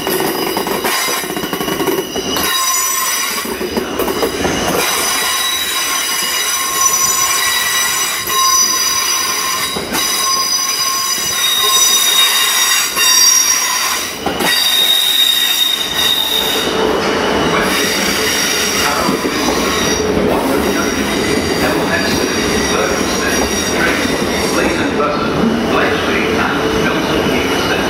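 Class 350 Desiro electric multiple units moving through the station on curved track, their wheels squealing in several high, steady tones, loudest about halfway through. From about 16 s the running rumble of a unit passing close grows stronger beneath the squeal.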